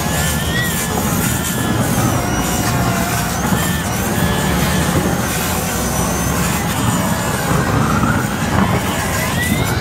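Propane roofing torch burning steadily, a loud continuous rush of flame as it heats torch-down modified-bitumen membrane to weld it to the base layer.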